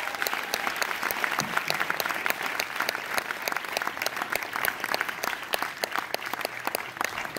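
An audience applauding, many hands clapping at once. It is loudest at the start, eases off gradually, and dies away at the very end.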